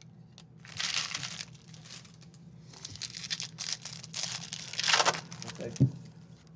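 Foil wrapper of a 2022 Topps Stadium Club Chrome baseball card pack crinkling and tearing as it is opened, in several bursts. A single thump comes near the end.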